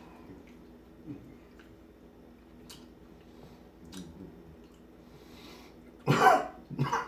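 Quiet, wet chewing of a dried Carolina Reaper pepper pod, with faint scattered clicks. Near the end come two loud coughs, the first the louder.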